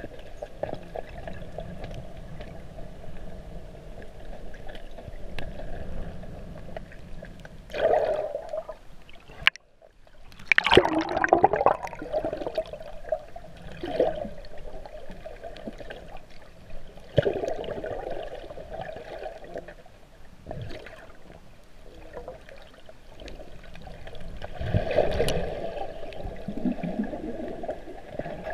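Muffled underwater sound from a submerged camera: a steady murky rush of water with swells of gurgling and a few sharp knocks. A brief dropout a little before ten seconds in is followed by the loudest gurgling.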